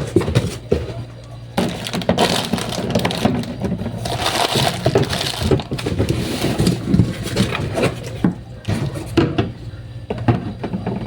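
Plastic shopping bags and packaging crinkling and rustling in irregular bursts as groceries are handled and unpacked, busiest from about two to six seconds in.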